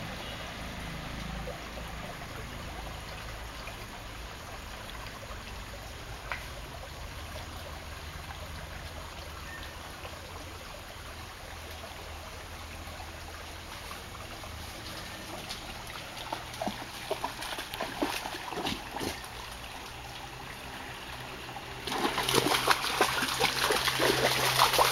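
A small forest stream trickling steadily over stones. From about sixteen seconds in come scattered rustles and clicks, and in the last three seconds loud, close rustling and knocking as the dog's fur brushes against the camera.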